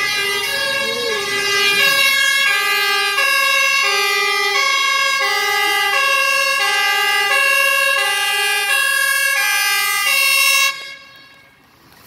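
Two-tone siren of an arriving MAN fire engine, alternating steadily between a low and a high note. It cuts off abruptly near the end as the truck comes to a stop.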